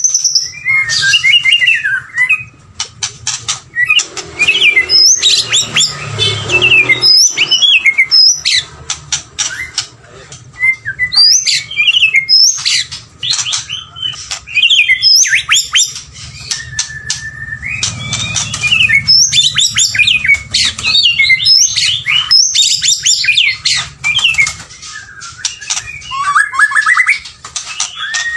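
White-rumped shama singing a long, varied song of sweeping whistles mixed with fast clicking, chattering runs, in phrases a second or two apart, over a faint low rumble.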